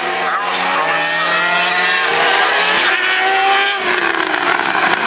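Aprilia RS3 'Cube' 990 cc inline-three four-stroke MotoGP engine at high revs, climbing in pitch as the bike approaches. About four seconds in it passes close by and the pitch drops sharply.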